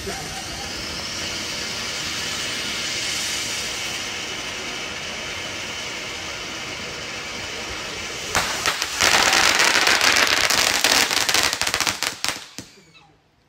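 Ground fountain firework spraying sparks with a steady hiss. About eight seconds in it breaks into loud, rapid crackling, which dies away near the end.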